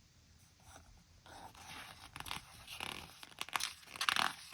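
Paper rustling and crinkling, with a few sharp crackles, as a picture book's page is handled and turned.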